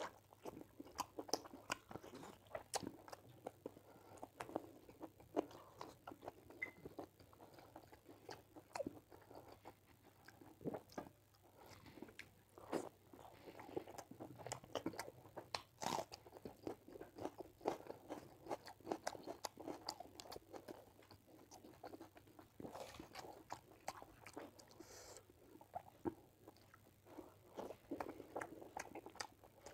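Close-miked eating sounds of chicken curry and rice eaten by hand: chewing and smacking, with frequent irregular sharp clicks. Squelches come from fingers working the rice and curry on the plate.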